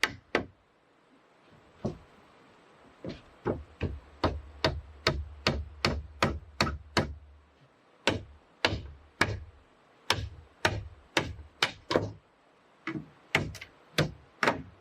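Hammering on timber: sharp wooden knocks, about two a second, starting a few seconds in and running on steadily, with a low rumble beneath them for a few seconds in the middle.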